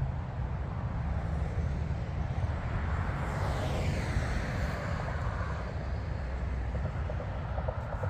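A vehicle passing by, its noise swelling and falling in pitch about three to four seconds in, over a steady low rumble.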